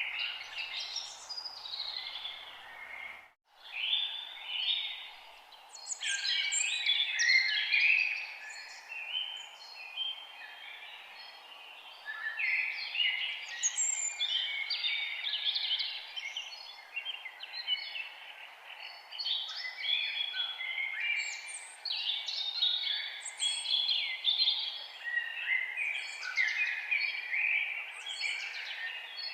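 Several birds chirping and singing at once, a dense, overlapping chorus over a steady background hiss, broken by a brief cut to silence about three seconds in.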